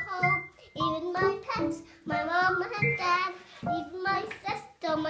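Young girl singing in short phrases with brief pauses between them.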